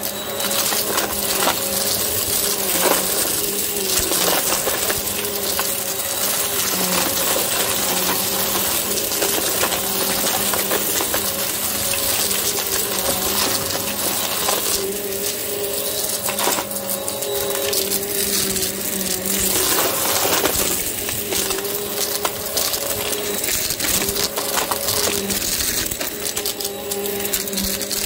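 Hoover upright vacuum cleaner running, its motor's steady hum under a constant crunching crackle and rattle as it sucks up a pile of lint strewn with coins, glitter and foil scraps from a carpet.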